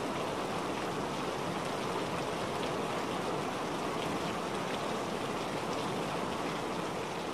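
Steady rushing water-noise ambience with a few faint drip-like ticks.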